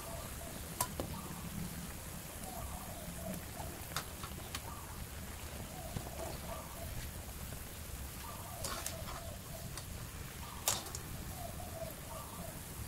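Water at a rolling boil in a metal wok, with several sharp clicks as a wire spider strainer knocks against the wok while scooping out instant noodles.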